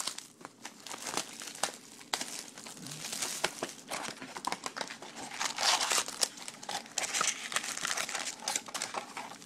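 Plastic shrink wrap crinkling and tearing as it is stripped from a baseball card box, then wrapped card packs crinkling as they are handled and lifted out.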